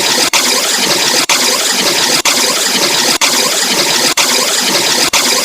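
Distorted vocoder sound effect: a loud, dense, noisy buzz that fills the whole range. It cuts out for an instant about once a second, as if looping.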